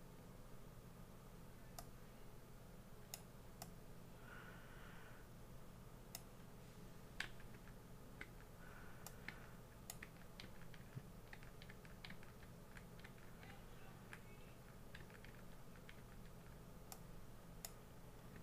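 Faint, irregular clicks of a computer keyboard being tapped, coming thicker through the middle, over a steady low hum.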